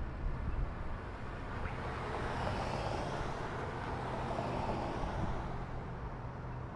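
A car passing on the road, its noise swelling and fading over a few seconds, over a steady low wind rumble on the microphone while riding.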